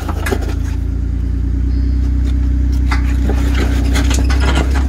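Jeep Wrangler engine running steadily under load as the Jeep crawls slowly over rocks, with a few short knocks.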